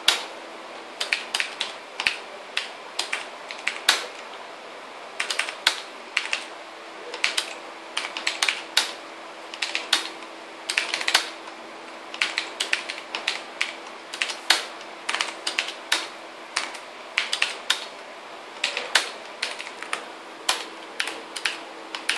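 Typing on a beige TVS computer keyboard: runs of quick key clicks broken by short pauses, over a faint steady hum.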